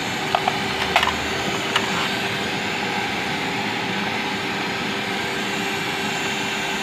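A steady mechanical drone with a faint constant hum, like a motor or engine running in the background. Over it, a few light metallic clicks in the first two seconds as an alternator is handled.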